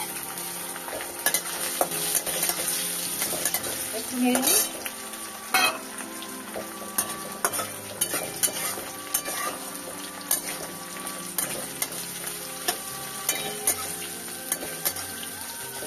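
Chopped coconut frying in hot oil with a whole-spice tempering (phoron), a steady sizzle, while a spatula stirs and scrapes the pan with frequent short clicks.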